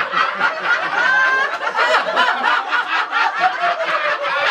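A roomful of people laughing together, many voices overlapping without a break.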